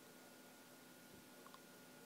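Near silence: a faint steady hiss and hum of room tone, with a couple of faint clicks about one and a half seconds in.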